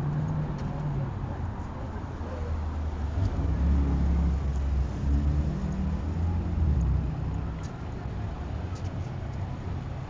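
City street traffic with a motor vehicle passing close by: a low engine rumble swells about three seconds in and eases off a few seconds later, over steady traffic noise.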